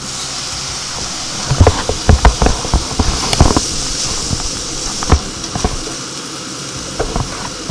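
Beef strips and onions sizzling in olive oil in a hot frying pan, a steady high hiss. A run of sharp knocks and clatters from about one and a half to five and a half seconds in is louder than the sizzle.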